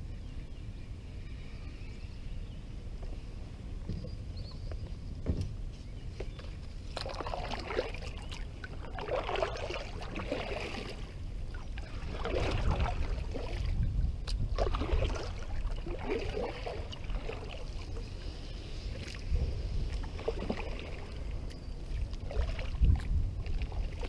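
Double-bladed kayak paddle dipping and splashing in the water, a stroke every second or two, the strokes starting several seconds in. Wind rumbles on the microphone underneath.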